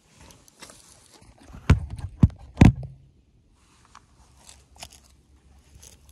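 Handling noise of a phone camera being picked up and set back down on dry leaves and dirt: rustling and scraping, then three sharp thumps right on the microphone about two seconds in. Faint crunches of dry leaves follow near the end.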